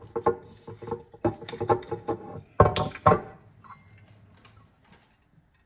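A glass oil bottle being uncapped and a metal measuring cup being handled: a run of sharp clicks and clinks, some ringing briefly, that dies away about three seconds in.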